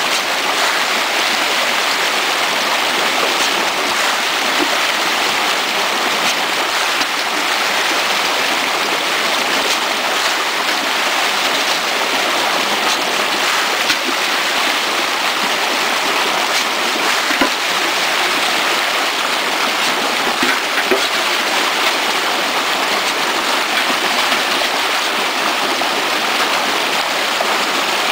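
Rainbow trout thrashing and splashing at the surface of a netted pen in a feeding frenzy, a steady churning splash of water with a few small sharper splashes.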